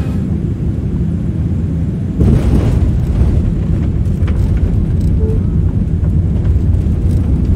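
Boeing 787-8 landing, heard from the economy cabin: a steady low rumble that turns louder and rougher about two seconds in, typical of touchdown and the start of the landing roll.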